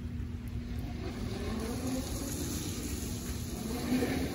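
Segway Ninebot GoKart Pro's electric drive motor whining as the kart speeds across the lot. Its pitch rises and falls with the throttle, over a steady low rumble.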